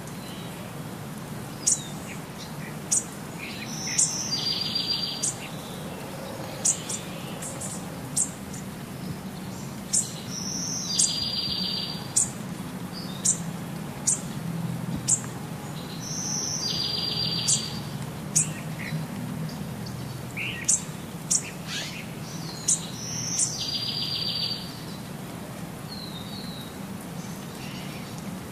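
Birds chirping: short, sharp downward-sweeping chirps about once a second, with a buzzy trill recurring every six seconds or so, over a low steady hum.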